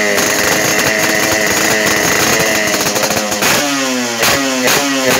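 Yamaha RX-King's two-stroke single-cylinder engine with a racing exhaust, revved on the stand: held at high revs, then from about three and a half seconds in blipped in short bursts with sudden cuts of the throttle.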